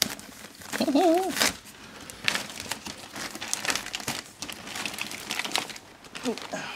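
Miniature Pinscher puppies playing with their toys: scattered rustling and crinkling, with a short wavering whine about a second in and another brief one near the end.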